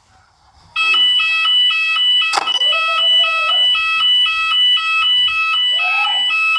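Store fire alarm sounding a loud alternating two-tone evacuation alarm, starting about a second in. This is the tone that alternates with the recorded evacuation message. A sharp click about two seconds in and two short voice-like calls are heard over it.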